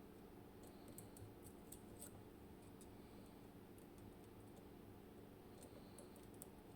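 Faint ticks and clicks of a lock pick working inside an M&C Matrix lock's keyway, lifting pins and sliders. Small clusters of clicks come about a second in and again near the end, over a low steady hum.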